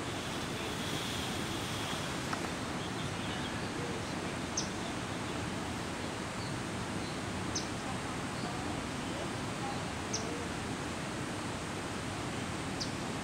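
Steady rushing of flowing water, with a short high bird chirp repeated about every two and a half seconds.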